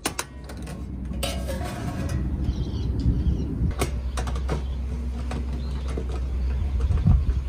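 Stainless steel clinking and tapping: round rotary air vents are handled and seated into holes in a stainless steel pan. A steady low rumble runs underneath.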